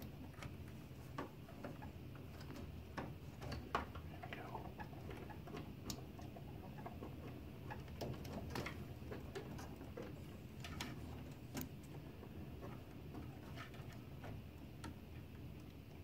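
Hand screwdriver driving a small screw into a cooling fan's mounting bracket: faint, irregular clicks and scrapes of the screw, driver and parts being handled.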